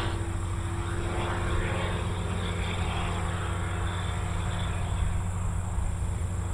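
Light single-engine bush plane's engine and propeller droning steadily as it climbs away.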